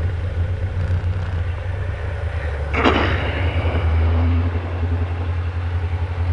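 Diamond DA20's piston engine and propeller running steadily at low power, heard from inside the cockpit, with a short burst of noise about three seconds in.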